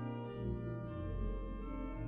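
Organ music played on the Salisbury Cathedral organ sample set through Hauptwerk: sustained chords over pedal bass notes, with the bass note changing twice.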